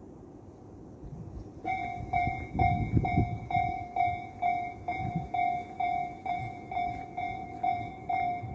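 Japanese railway level-crossing alarm starting up about two seconds in: an electronic bell ringing 'kan-kan' about twice a second, steady and unbroken, the warning that a train is approaching and the crossing is closing. A brief low rumble comes just after it starts.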